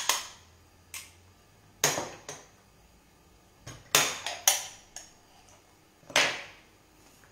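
Metal potato ricer clacking and knocking as boiled potatoes are loaded into it and pressed out: a string of sharp metallic clanks, about eight in all, the loudest about 2, 4 and 6 seconds in.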